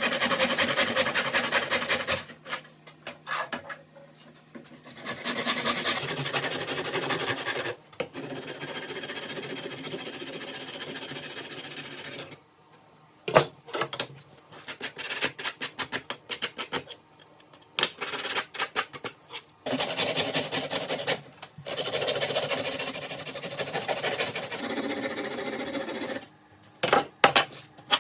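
Woodworking tool noise on wood in several separate bursts with pauses between them, fast-repeating strokes and rubbing like a jigsaw or sanding, and one sharp knock about thirteen seconds in.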